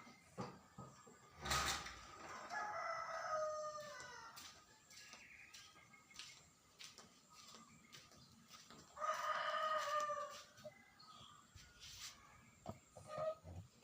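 A rooster crowing twice, two long calls several seconds apart, with a sharp knock just before the first.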